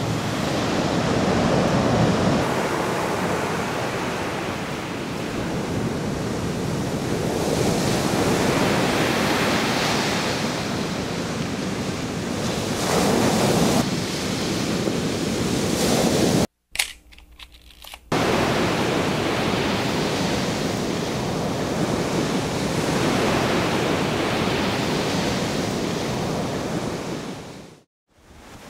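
Wind blowing over the microphone with surf breaking on a beach, a steady, even noise. It drops away briefly for about a second and a half past the middle, then comes back and fades out near the end.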